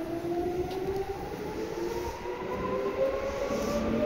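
Seibu 2000 series electric train running, its traction motors whining in several tones that rise steadily in pitch as the train picks up speed, over a low rumble of wheels on rail.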